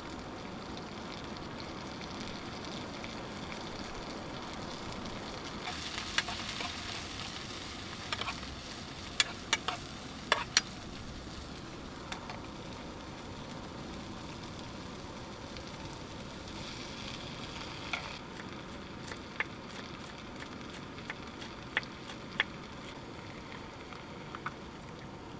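Food frying and sizzling in a frying pan, with a steady hiss that swells louder twice, about six seconds in and again about seventeen seconds in. Sharp clicks and taps come through, in a cluster between about eight and eleven seconds and a few more later on.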